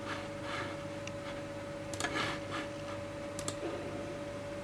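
Quiet steady electrical hum with a few soft clicks, among them a quick double click about three and a half seconds in, as a computer mouse double-clicks the video player into full screen.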